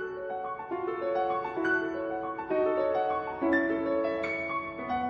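Background piano music: a steady run of single notes and chords, each struck and left to fade.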